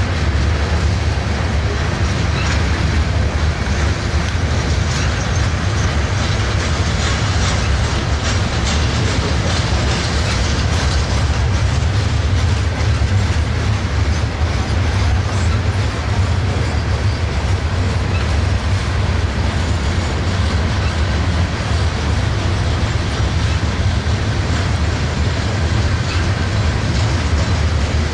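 Norfolk Southern freight train's open-top hopper cars rolling steadily past, a continuous deep rumble of steel wheels on the rails.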